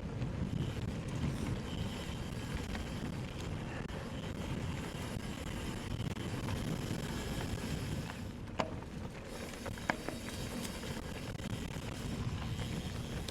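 Wind buffeting the microphone over a steady low rumble, as from a camera riding on an e-mountain bike along a forest trail. Two short sharp knocks come about two-thirds of the way through.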